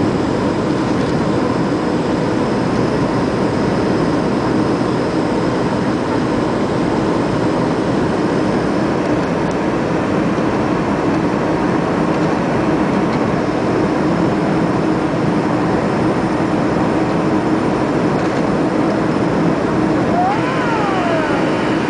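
Steady jet noise of a McDonnell Douglas MD-80's rear-mounted Pratt & Whitney JT8D turbofans, holding an even level with a low hum, and a faint tone sweeping up and down near the end.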